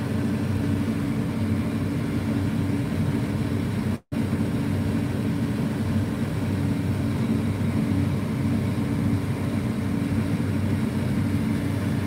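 Steady drone of a New Holland CR8.90 twin-rotor combine heard from inside its cab, the machine harvesting wheat with its unloading auger running. The sound cuts out for an instant about four seconds in.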